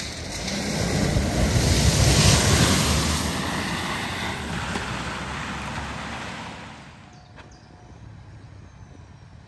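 A vehicle driving through floodwater: engine noise and the rush of splashing water swell to a peak about two seconds in, then fade away over the next five seconds.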